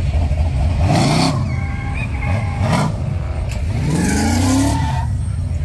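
Classic Oldsmobile Cutlass's engine revved three times as it drives past, each rev a rising pitch with a rush of exhaust noise, the last one longest, over a steady low engine rumble.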